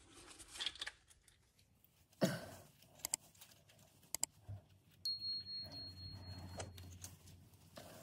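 Quiet handling noises as female spade connectors are pushed onto a washing machine drain pump's terminals: a short scrape, then a few small sharp clicks. A faint low hum comes in about halfway through.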